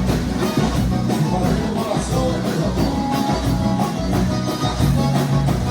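Live gaúcho dance band playing an instrumental passage between sung verses, with a steady dance beat on drums, bass and guitar.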